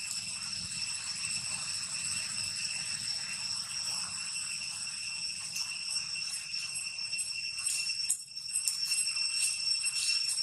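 Cicadas droning in one steady high-pitched tone, with dry leaves crackling a few times near the end as a macaque steps over them.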